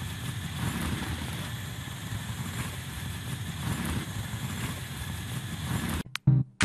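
Large steel stockpot of pasta at a rolling boil, bubbling steadily as its lid is lifted and steam escapes. Music comes in suddenly near the end.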